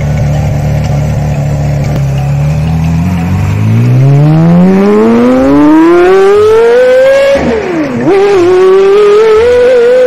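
Porsche Carrera GT's V10 engine running at a steady low pitch, then accelerating hard. Its pitch climbs steadily for about four seconds, drops sharply at a gear change about seven and a half seconds in, then climbs again.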